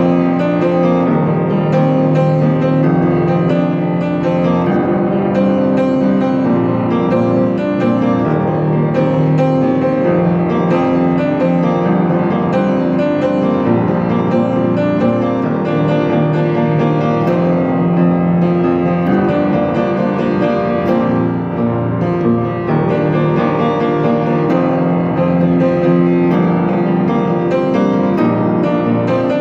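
Piano music: sustained chords and notes shifting slowly, without pause.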